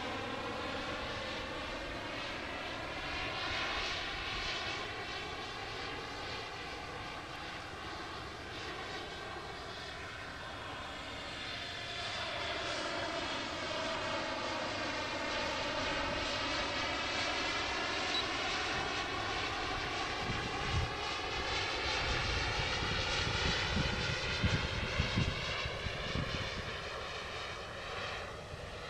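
Turbine engine of a Tomahawk Futura radio-controlled model jet whining in flight, its pitch sliding down and back up as it passes. It grows louder in the second half, with low buffeting rumbles in the last third.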